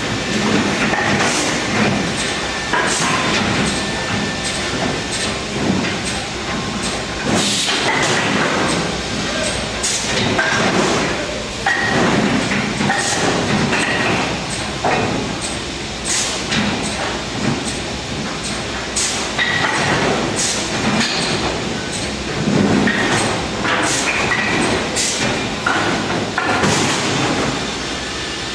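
MPCNC (Mostly Printed CNC) machine running a job at high speed: a steady mechanical rattle and whir, with short whining tones from the stepper motors that shift pitch every second or two as the moves change, and frequent sharp clicks.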